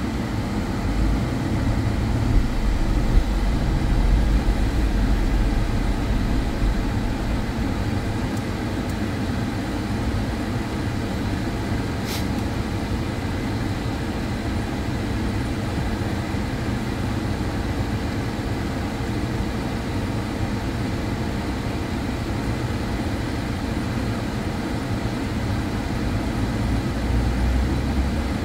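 Car driving slowly on a snow-covered street, heard from inside the cabin: a steady low rumble of engine and tyres on snow, heavier for the first few seconds and again near the end. A single short click comes about twelve seconds in.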